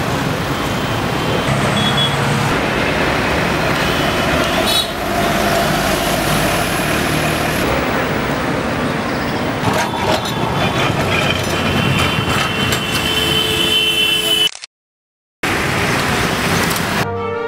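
Steady road traffic noise, the engines of passing vehicles, broken by about a second of silence near the end.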